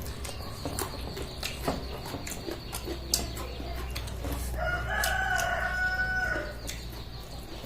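A rooster crowing once, a single held call of about two seconds past the middle, with scattered small clicks and taps around it.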